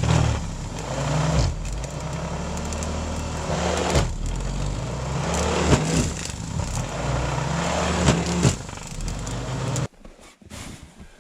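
An engine running, its speed rising and falling, with a few sharp knocks along the way; it stops abruptly near the end.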